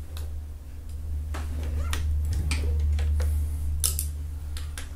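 Scattered light clicks and taps of an Allen key and metal rest parts being handled while levers and screws on a front rifle rest are loosened and moved, over a steady low hum.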